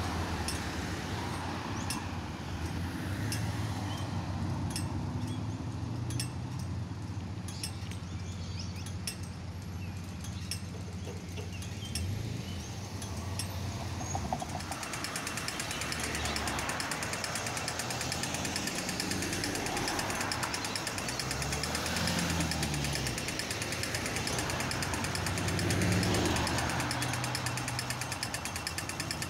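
Street traffic: a tram moving off with scattered sharp clicks over a low hum, then cars driving past with engine sounds rising and falling. About halfway through, a fast, even rattle joins and keeps going.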